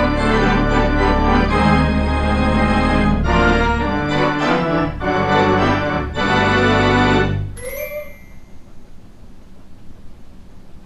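Closing theme music played on an organ, with full sustained chords that break off about seven and a half seconds in, leaving a short fading tail.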